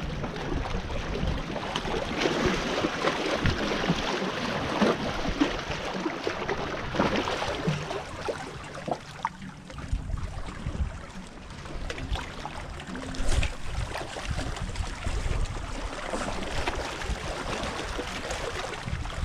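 Water washing and splashing steadily, with irregular low rumbles of wind on the microphone.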